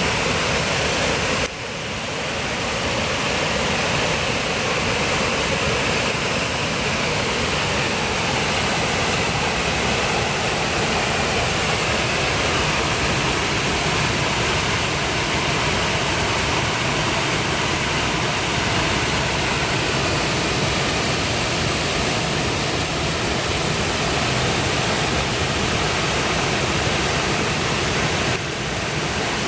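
Shiraito Falls, a low, wide waterfall where groundwater spills over the rock face in hundreds of thin streams, making a steady rushing hiss of falling water. The sound dips briefly twice, about a second and a half in and near the end.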